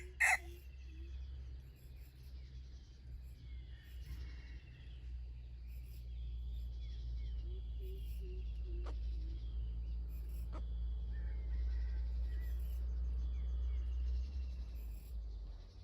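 Faint chirping bird calls repeat over a steady low rumble, with two faint clicks about nine and ten and a half seconds in.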